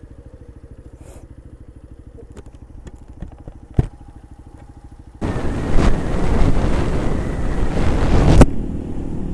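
Keeway RKV 125cc motorcycle engine running at low revs with an even pulse. About five seconds in, loud wind noise buffets the microphone for about three seconds, then cuts off suddenly.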